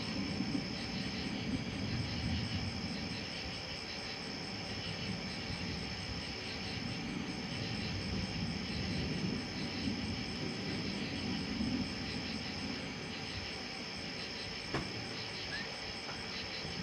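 Night insect chorus, a steady high-pitched buzzing with brief breaks, over an uneven low rumble. A single click comes near the end.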